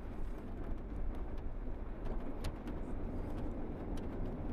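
Steady engine and road rumble heard inside a moving tour bus, with a few faint rattling clicks.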